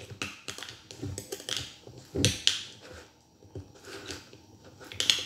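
A utensil clicking and scraping against the inside of a glass jar as fermenting rice and fish are packed down, in irregular knocks and scrapes, the loudest a little over two seconds in. The packing presses air out of the burong isda.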